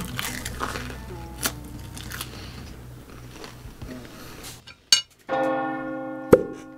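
Close-miked biting and chewing of a Korean corn dog, with small wet clicks and crunches. About five seconds in, this cuts off and an edited bell-like chime rings out and fades.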